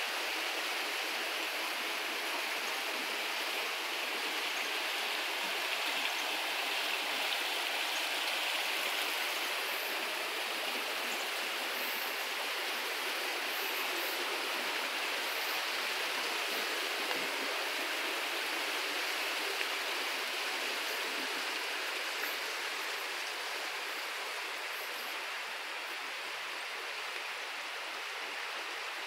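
Steady rushing of flowing water, a stream running through the gorge below, an even rush that grows a little fainter near the end.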